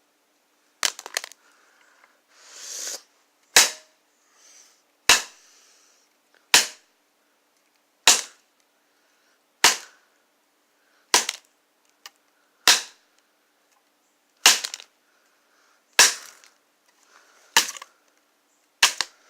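Repeated sharp blows striking a broken smartphone as it is being smashed, about a dozen strikes roughly every second and a half, with a short hiss about two seconds in.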